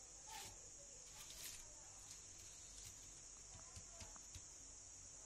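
Near silence: a faint steady high hiss with a few soft, scattered ticks.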